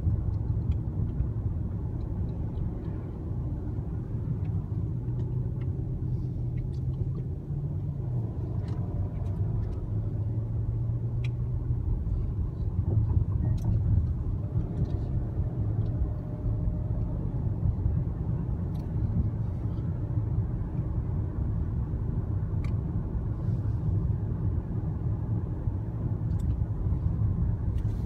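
Steady low rumble of road and engine noise inside a moving car's cabin, with a few faint ticks scattered through it.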